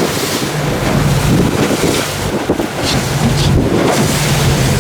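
Wind buffeting the microphone over the rush of sea water against a moving boat, with a low steady engine hum underneath as the boat trolls.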